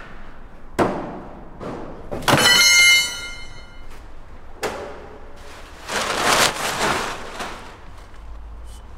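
Knocks and thuds of a car being opened and searched: a sharp knock, then a loud metallic clang about two seconds in that rings on for a second or so, another knock, and a rustle of plastic sheeting near the end.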